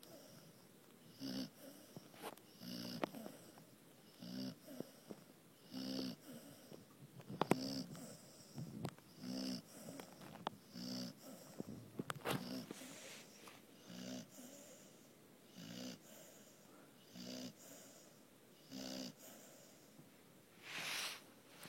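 Snoring: a short, rough, pitched breath roughly every second and a half, with a few faint clicks between them.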